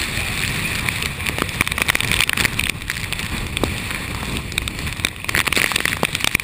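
Typhoon wind buffeting the microphone in a low rumble, with rain striking the camera in many sharp ticks.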